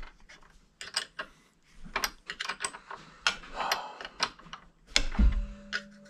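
Open-end wrenches clicking and clinking on the steel pivot bolt of a brake pedal assembly held in a vise as the bolt is worked in short strokes and the wrench is repositioned. A heavier thump comes about five seconds in, followed by a faint steady hum.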